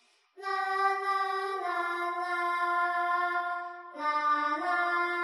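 Cartoon game monsters singing a long held, wordless note. It starts after a short silence, steps down in pitch about one and a half seconds in, breaks briefly near four seconds, and comes back with a lower note that slides up.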